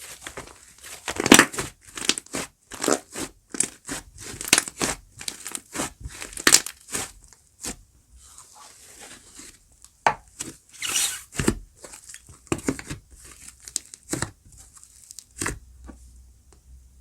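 Slime being squeezed, stretched and pulled apart by hand, making irregular sticky crackles and tearing pops of varying loudness that grow sparser near the end.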